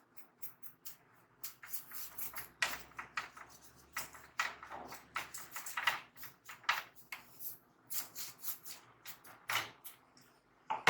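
Irregular run of short rubbing and wiping strokes, several a second at times, from cleaning a laptop part by hand.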